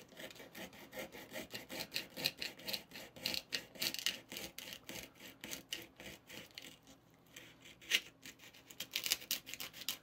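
Small knife sawing back and forth through a crisp wafer cone of a marshmallow candy cone, a dense run of quick crunching, scraping strokes. The strokes ease off for a moment about two-thirds through, then one sharper crack comes just before the end.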